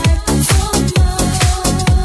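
Electronic dance music with a deep kick drum about twice a second.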